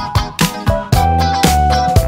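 Background music with a steady beat, a bass line and held melody notes.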